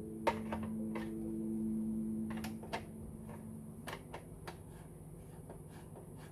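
Scattered light clicks and taps of a screwdriver working screws on the plastic cabinet of a Sharp GF-777 boombox, over a low held tone that stops about four seconds in.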